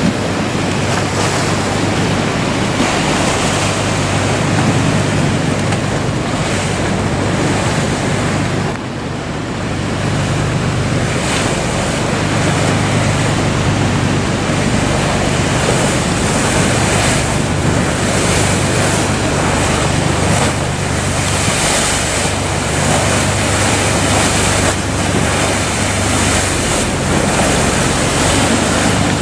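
Breaking surf and churning sea water, with wind buffeting the microphone and a low steady rumble underneath; the loudness dips briefly about nine seconds in.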